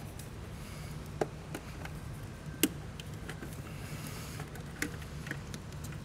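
A handful of sharp clicks and knocks as a BMW DME engine control module is worked loose from its housing, the loudest about two and a half seconds in, over a steady low hum.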